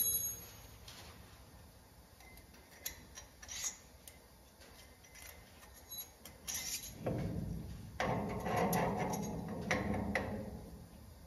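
Steel suspension parts handled and fitted together by hand: a few light clicks at first, then, about seven seconds in, a longer stretch of rubbing and knocking as the sleeve and hardware are pushed into the cantilever mount.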